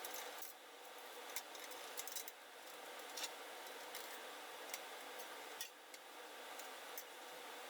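Faint, scattered metal clicks and ticks of small hardware being handled, as an Allen-head bolt and nut are fitted through a T-ring clamp on a cart frame. The clicks come irregularly, about eight in all, over a low steady hiss.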